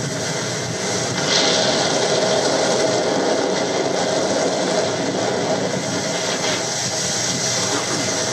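Steady engine rumble and rushing water of a boat under way, with wind on the microphone; it grows louder about a second in.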